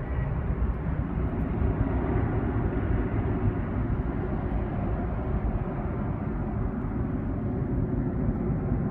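Distant airliner's engines on its takeoff roll on a wet runway, a steady rumble with no clear pitch.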